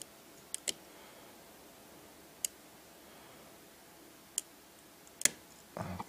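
About five sharp, widely spaced clicks from a pin-tumbler UNION round cylinder lock being picked under tension with a hook pick, the loudest about five seconds in. The clicks are pins setting at the shear line, with a short scuffing of hands on the lock at the very end.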